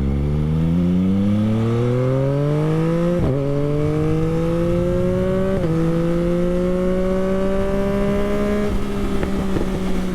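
2021 Yamaha MT-09's three-cylinder engine through an Akrapovic race exhaust, accelerating hard with revs climbing, two quick upshifts about three and five and a half seconds in. Near the end it levels off and the exhaust gives a few sharp pops.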